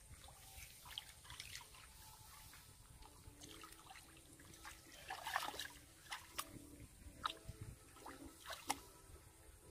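Hands groping and sloshing through shallow muddy water, with small scattered splashes and drips, a little busier about five seconds in.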